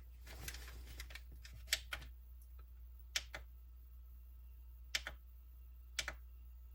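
Scattered small, sharp clicks and taps, about nine of them at irregular intervals, from hands handling a small RC crawler's parts and plastic wiring connectors. A steady low hum sits underneath.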